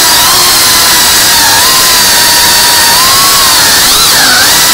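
FPV quadcopter's brushless motors and propellers heard through the drone's own onboard camera: a loud rushing hiss with a whine whose pitch wavers with the throttle, rising and dipping quickly near the end.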